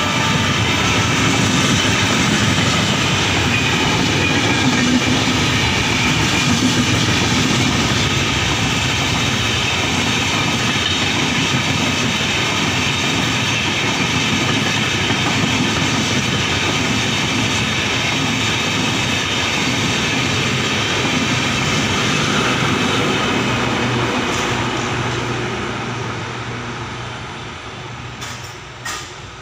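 Express train's LHB passenger coaches rolling past at speed, a loud steady rush of wheels on rails. The noise fades away over the last few seconds as the end of the train passes and recedes.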